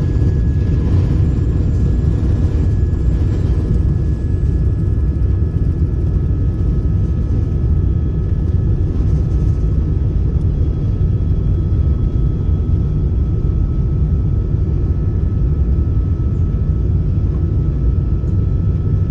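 Airbus A380-800 jet engines running at takeoff power: a loud, steady rumble with faint high whining tones above it.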